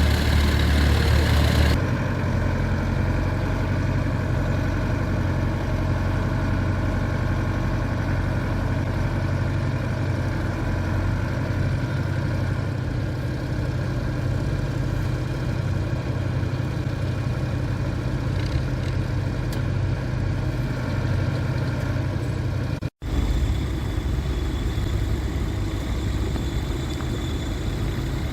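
Tractor engine running steadily. The sound changes abruptly about two seconds in and again near the end, after a brief dropout.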